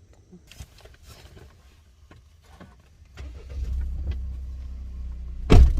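Car engine starting about three seconds in and settling into a steady low idle, after a few light clicks; a loud thump comes near the end.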